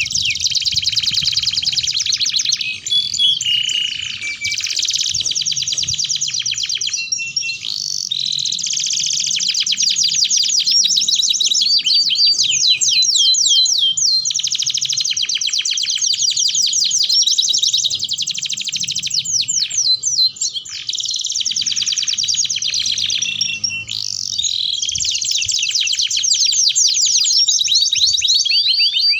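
Two domestic canaries singing long, near-continuous songs of fast trills and rolls. The phrases change every few seconds, with only brief breaks between them.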